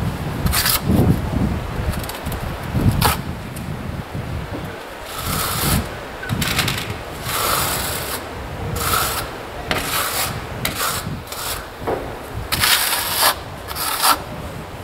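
Trowel scraping over adhesive on an insulated wall: a dozen or so short, irregular spreading and smoothing strokes.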